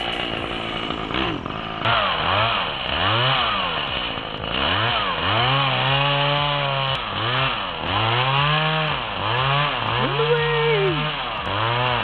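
Chainsaw engine revved up and down over and over, its pitch climbing, holding briefly and falling back about once a second.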